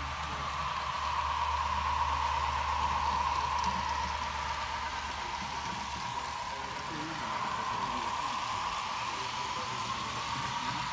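HO-scale model train running on the layout: a steady motor whine that slowly dips and rises in pitch, over a low hum and room hiss.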